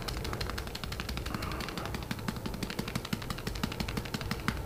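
Fine model-railway ballast shaken from a bag tapped by fingers, the grains pattering onto the track and baseboard in a rapid, irregular run of small ticks.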